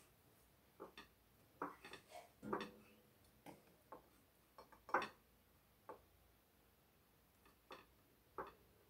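Faint, scattered light clicks and clinks of metal forks against a glass bowl and of cookies handled on a plate while jam-dipped ghriba are rolled in shredded coconut. The clicks are irregular, about a dozen of them, the strongest about five seconds in.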